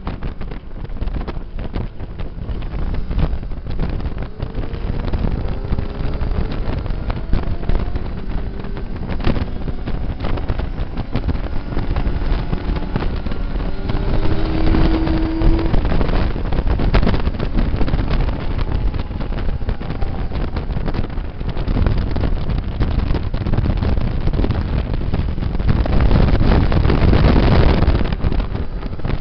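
Motorcycle at track speed: heavy wind rush on the microphone over the engine, whose pitch rises and falls with the throttle. A second motorcycle's engine sounds close by about halfway through.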